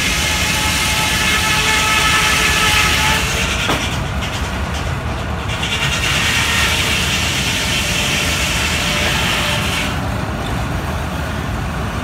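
Steam-powered sawmill's saw cutting through an oak log: a steady, loud rasp with a high whine, which dips about four seconds in, comes back, and eases around ten seconds in as the cut finishes.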